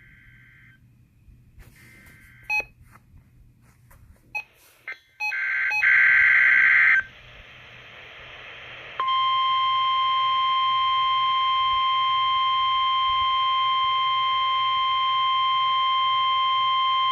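NOAA Weather Radio test signal heard through a radio receiver. Scattered clicks and short broken beeps are followed about six seconds in by a loud second-long burst of warbling SAME data tones. About nine seconds in, the steady single-pitch 1050 Hz Warning Alarm Tone starts and holds without a break.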